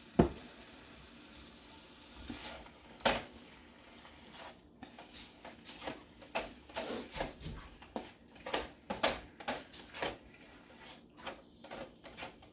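Kitchen cookware clatter: a sharp knock just after the start, another about three seconds in, then a run of quick clicks and knocks, like utensils working against a pan.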